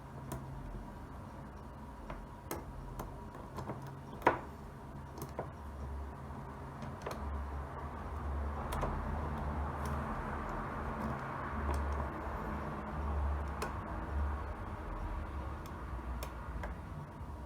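Small scattered metallic clicks and ticks of a lock pick and tension wrench working the pins of an old Yale deadbolt cylinder, with one sharper, louder click about four seconds in.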